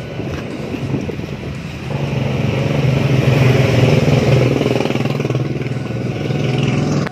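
A motor vehicle engine running close by, growing louder about two seconds in and easing off toward the end, then cutting off suddenly.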